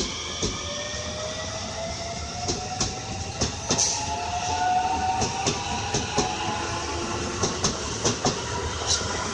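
Electric commuter train running at a station, with a motor whine that slowly rises in pitch as it gathers speed and wheels clacking over rail joints.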